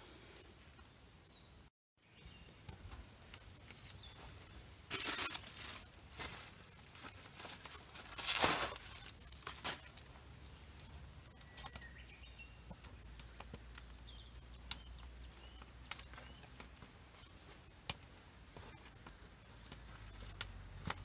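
Rustling and crinkling with scattered sharp clicks, two louder rustles about five and eight and a half seconds in, over a faint steady high-pitched hum.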